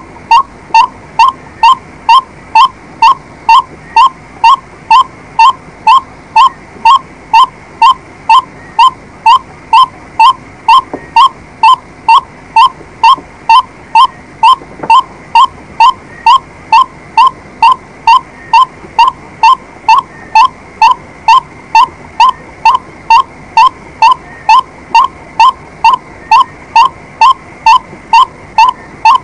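White-breasted waterhen calling: one short, clear note repeated evenly, about every 0.6 s, without a break.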